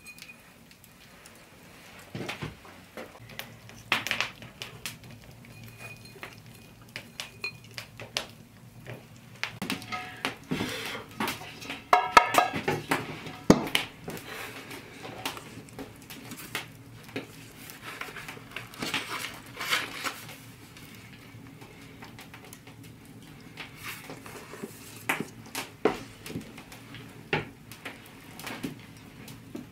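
Kitchen utensils and dishes, a pot and bowls, clinking and knocking irregularly on a table as ingredients are handled. The clatter is busiest about a third of the way in, where there are some brief ringing clinks.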